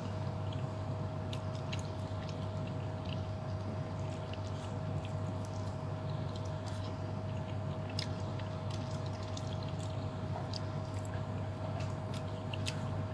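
Steady low hum with a faint constant tone, with scattered light clicks and clinks of cutlery, such as a fork working on a plate.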